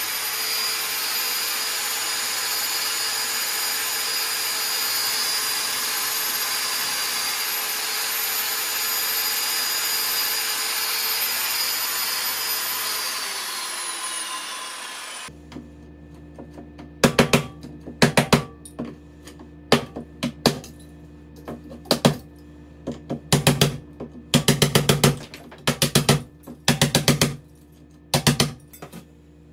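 A power tool cutting an electrical box opening in the bathroom wall runs steadily, then its whine falls away as the motor spins down about 13 to 15 seconds in. After it, sharp hammer blows on a pry bar, some in quick clusters, chip out the opening.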